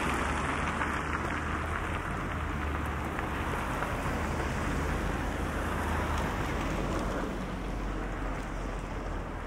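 Outdoor street ambience: a steady wash of noise with a low hum underneath that stops about six seconds in.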